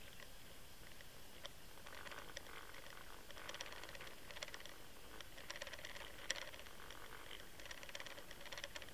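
Faint clusters of rapid ticking and clicking with a low hiss, heard from a camera being pulled underwater behind an umbrella rig as it is retrieved, with one sharper click about six seconds in.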